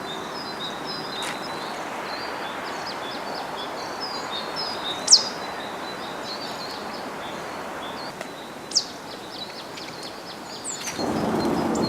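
Tits calling: a run of short high chirps, with two louder sharp calls about five and nine seconds in, over a steady background noise that gets louder near the end.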